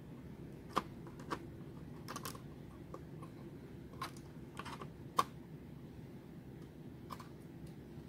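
Irregular light clicks and taps of fingers working a thin connector plug and small parts loose inside an opened Asus X441BA laptop, around its cooling fan and wi-fi card.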